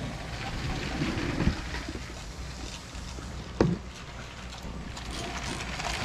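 Remote-control LEGO passenger train running on plastic track: a small electric motor whirring and wheels rattling over the track joints, with a sharp knock about three and a half seconds in.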